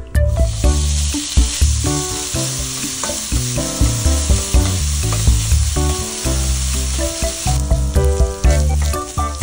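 Chopped bacon going into a hot nonstick frying pan and sizzling as its fat renders, with a spatula scraping and tapping the pan as it is stirred. The sizzle thins out near the end. Background music plays underneath.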